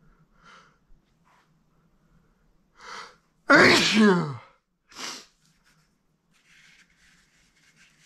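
A man's pollen-allergy sneeze: a quick breath in, then one loud, forceful sneeze about three and a half seconds in, its voiced cry falling in pitch, followed by a short breath out.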